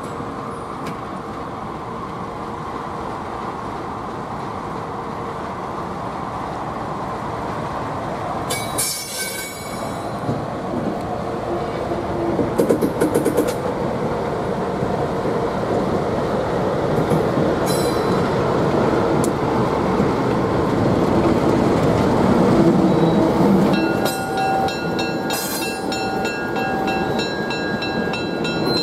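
Excursion train hauled by Canadian FPA diesel locomotives running past, its rumble building steadily, with bursts of wheel clicks over the rail joints. In the last few seconds a high-pitched steel wheel squeal sets in and holds.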